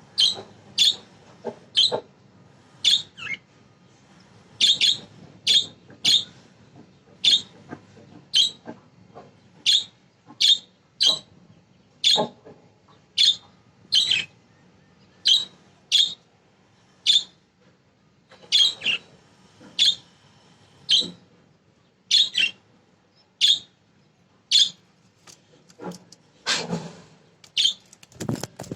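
Pet budgerigars calling: short, sharp, high chirps repeated about once a second, with a longer, harsher call near the end.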